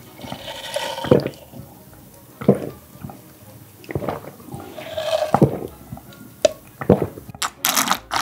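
A person gulping spicy ramyeon broth straight from a bowl, close to the microphone: a series of separate swallows, about one every second and a half, with wet slurps in between and a run of slurping near the end.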